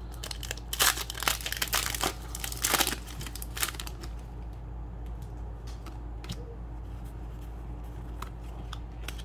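Foil wrapper of a Pokémon booster pack crinkling and tearing as a stubborn pack is pulled open, dense for about the first four seconds. After that only a few faint scattered ticks.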